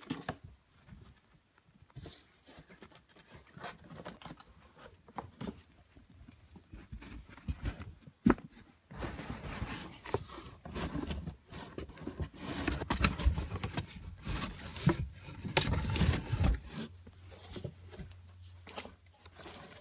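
A ferret scrambling around on carpet and in and out of cardboard boxes during its frantic after-bath run, with irregular scuffling, rustling and knocks against the cardboard. The scurrying grows busier and louder about halfway through, then eases off near the end.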